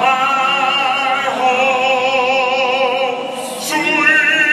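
A solo singer over a stadium's public-address system, holding long notes with a wide vibrato in an operatic style.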